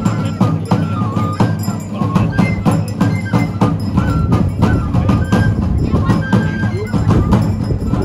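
Traditional festival dance music: a drum beating a quick, steady rhythm under a single high, flute-like melody that steps up and down in pitch.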